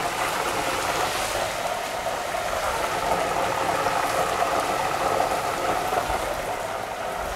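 A pot of hot deep-frying oil sizzling steadily as battered ice cream fries in it.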